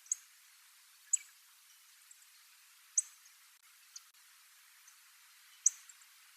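Little Bunting giving short, sharp, high-pitched calls: four clear ones at uneven gaps of one to three seconds, with a few fainter ones between.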